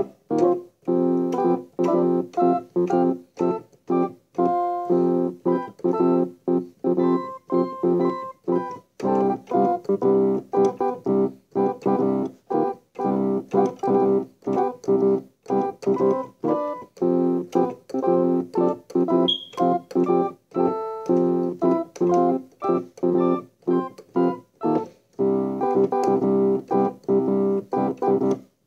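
Background music: short, choppy keyboard-like chords repeating in a quick, steady rhythm.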